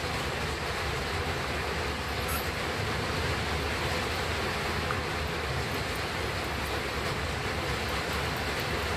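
Steady rushing noise with a low rumble underneath, even throughout and with no distinct clicks or events.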